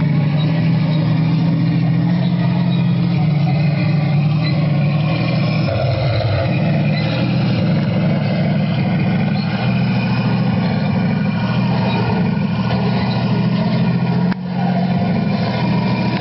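A 1:4 scale model T-34-85 tank running as it drives over dirt and through mud: a steady low engine sound, with a brief drop and a click about fourteen seconds in.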